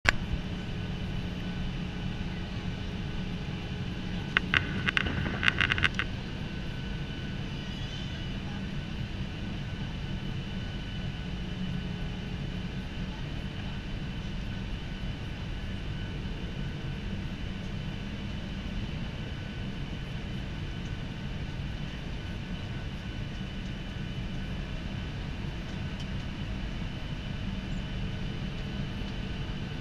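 Steady cabin noise of a Boeing 737 airliner in flight on approach: an even drone of the jet engines and the rushing air, with a faint high whine. A brief cluster of clicks comes about four to six seconds in.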